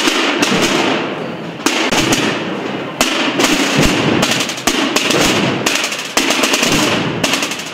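Massed processional drums and bass drums (tambores and bombos) played together: a loud, dense rattle of drumstick rolls and strokes, with a sharper accented beat about every second and a half.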